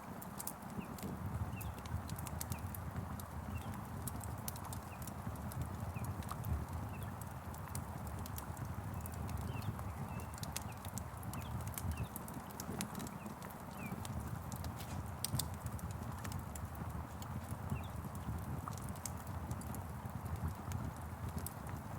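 Wood fire crackling with sharp, irregular pops over a steady low rumble, against an even hiss of rain, with a few short bird chirps.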